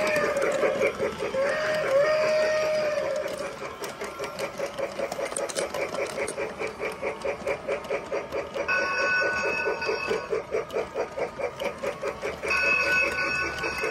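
Toy steam locomotive's sound effects. A whistle-like gliding tone comes near the start, then a fast, even chugging rhythm, and the bell rings twice in the second half.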